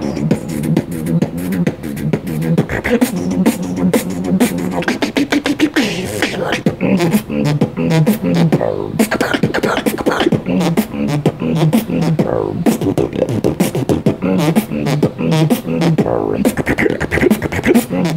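Solo human beatboxing: a fast, continuous run of vocal kick, snare and hi-hat clicks over a hummed bass line that steps between a few low notes.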